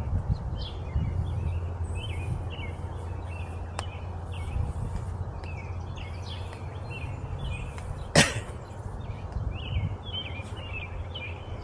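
Small birds chirping over and over in short calls, over a steady low rumble. A sharp click stands out about eight seconds in, with a fainter one about four seconds in.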